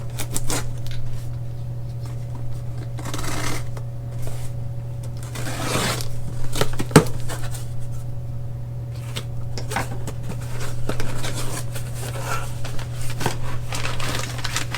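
A cardboard box and its packaging being opened and the parts inside handled: rustling, scraping and scattered clicks and knocks, with one sharp knock about seven seconds in, over a steady low hum.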